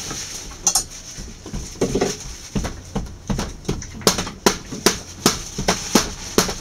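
Quick, regular clicking noises from a yellow Labrador Retriever, about two to three a second.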